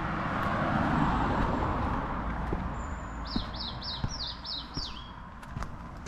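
A songbird calls a quick run of about seven falling notes, a little over halfway through. Before that, a steady rushing noise swells to its loudest about a second in and then fades away.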